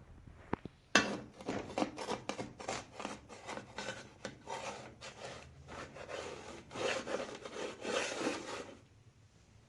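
Rapid, uneven scraping or rubbing strokes, one after another, starting about a second in and stopping shortly before the end.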